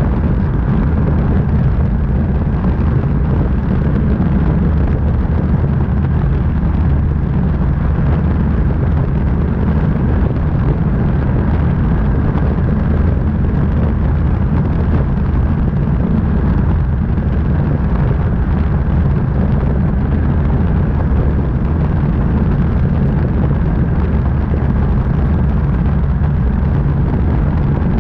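Steady low rumble of airflow buffeting a camera mounted under a light aircraft's wing in flight, with the aircraft's engine and propeller drone running beneath it.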